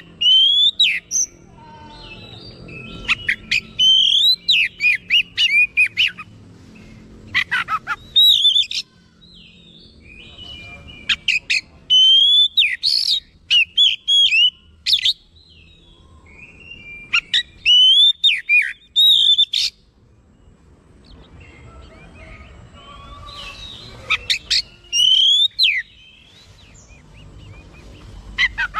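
Oriental magpie-robin singing in full song: bursts of loud, varied whistled phrases with rising and falling notes, broken by pauses of a second or two and a longer lull about two-thirds of the way through.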